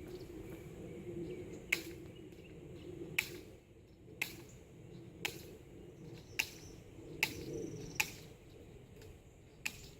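Wire fencing being cut with cutters: eight sharp snips, one roughly every second, over a steady low background noise.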